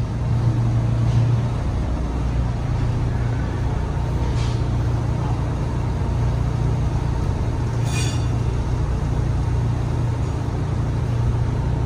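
Steady low machinery drone, an even hum with no change in pitch, with a single short clink about eight seconds in.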